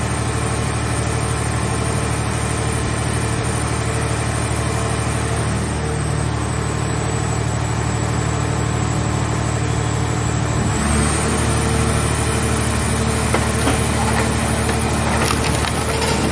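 Hydraulic scrap car baler running with a steady hum from its power unit. About eleven seconds in, its low tone shifts as the press takes the load. Near the end, the car shell's sheet metal creaks and crackles as the folding lid crushes it.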